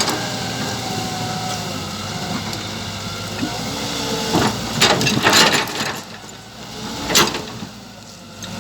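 Scale RC hydraulic excavator running with a steady mechanical hum, broken by loud crunching scrapes about halfway through and again near the end.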